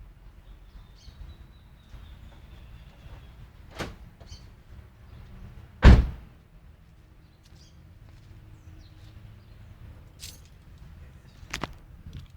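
Volvo S60 T5 at a low steady idle rumble, with one loud thump about six seconds in and a few lighter clicks around it.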